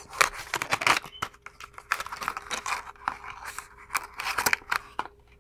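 Packaging being handled: irregular crinkling and rustling with small sharp crackles, stopping about five seconds in.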